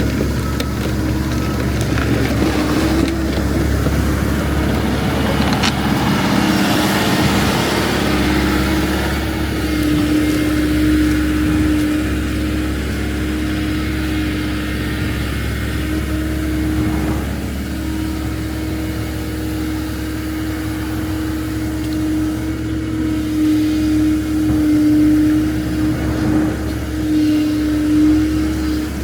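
Heavy equipment's diesel engine running steadily with a constant whine over it, the engine working a little harder in places.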